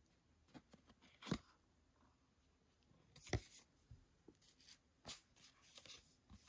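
Stiff photocards handled over a paper album: light card-and-paper rustles and small clicks, with two sharp taps, about a second in and a little past three seconds in.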